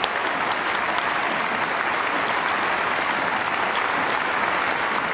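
Audience applauding: many people clapping together in a steady, even round of applause.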